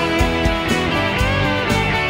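Background music, guitar-led, with a steady beat of about two beats a second and a lead line that bends in pitch about halfway through.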